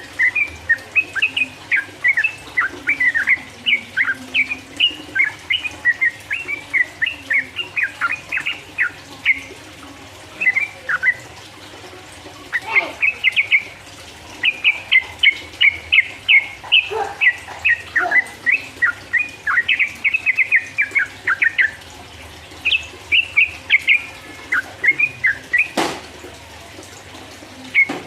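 Yellow-vented bulbul (trucukan) singing a fast, continuous chattering run of quick notes, the long ropel song, broken by a couple of brief pauses. There is a single sharp click near the end.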